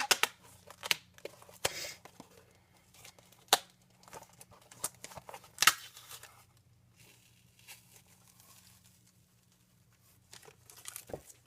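Duct tape being handled, crinkling with a series of sharp snaps and tearing sounds, sparser and quieter after about six seconds.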